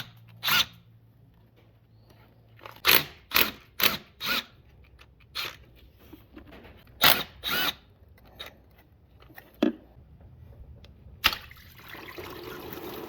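Sharp knocks and clacks of hand tools working on a car's thermostat housing, in small clusters. Near the end a loud click, then engine coolant starts pouring out and splashing steadily as the housing comes loose.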